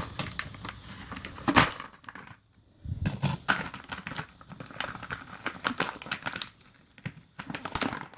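Plastic packaging crinkling and crackling in someone's hands as jewelry is worked out of it: a run of irregular crackles with a brief pause about two and a half seconds in.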